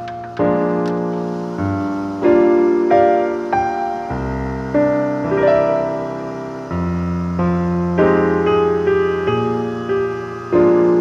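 Background music: a slow piano piece, its notes and chords struck one after another and each fading away.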